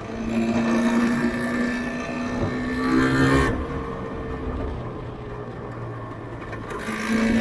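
Yamaha RZV500R's two-stroke V4 engine pulling steadily under throttle and rising a little in pitch, then the throttle shuts about three and a half seconds in and it runs lower and quieter. It picks up again near the end.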